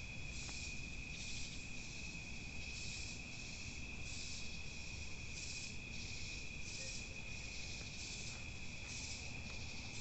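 Night insects calling: a steady high-pitched cricket trill, with a second insect's hissy pulses repeating roughly once a second over it.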